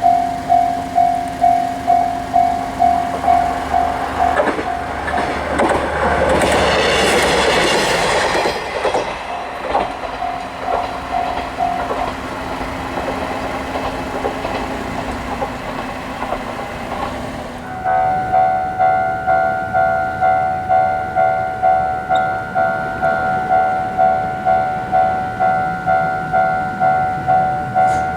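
Japanese railway level-crossing warning bell ringing about twice a second while a train passes over the crossing about five seconds in, its noise swelling and fading over a few seconds. The bell stops about twelve seconds in, leaving a low hum, and about eighteen seconds in another crossing bell with a higher, different tone starts ringing about twice a second.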